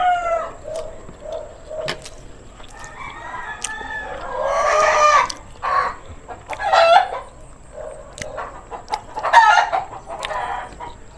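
Rooster crowing several times, the longest crow about four seconds in and shorter ones near seven and nine seconds, with scattered light clicks.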